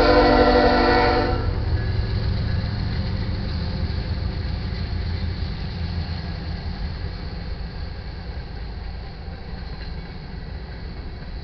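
GE ES44C4 locomotive's air horn sounding a chord as it passes, cutting off about a second in. Then the following locomotives and iron ore cars run past steadily on the rails, the sound fading slowly.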